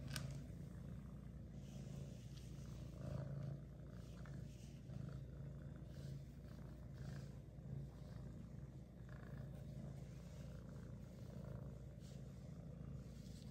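Kitten purring steadily while being stroked on the head, a low rumble that grows louder and softer with each breath. A short click sounds right at the start.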